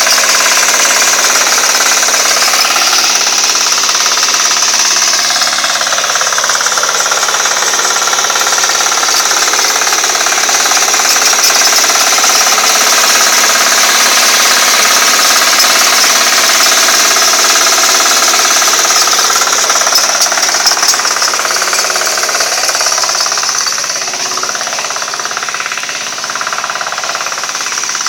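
Hand tractor's engine running loud and steady while its rotary tiller churns through weedy soil. Near the end the engine speed shifts and the sound eases a little.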